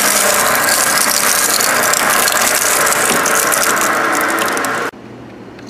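Ameri-Shred MJ-21001 twin-shaft shredder's cutters chewing through a chunk of wood, a loud, dense crackling and grinding full of sharp cracks. Near the end it drops suddenly to a much quieter steady hum.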